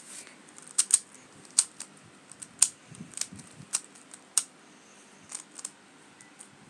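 Layers of a 3x3 speedcube being turned by hand to scramble it: irregular sharp plastic clicks, thinning out near the end.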